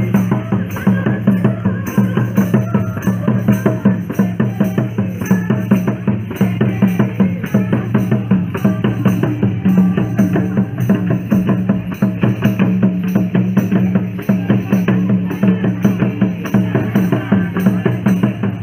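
Drums and percussion playing a fast, steady rhythm, with a jingling, tambourine-like sound over the beat.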